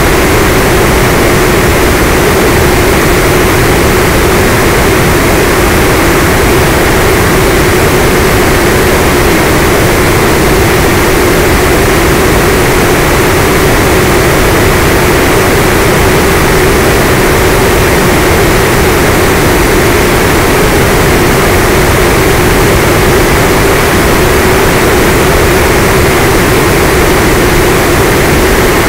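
Electric motor and propeller of an FPV model aircraft running steadily in flight, heard from the onboard camera: a constant hum with a fainter whine above it, over heavy wind rush.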